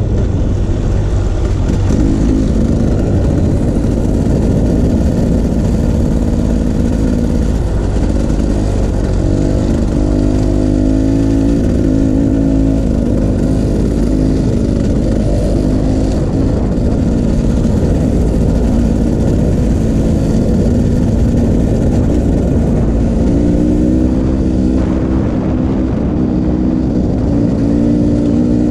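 Off-road vehicle engine running while riding a trail, its revs rising and falling a few times.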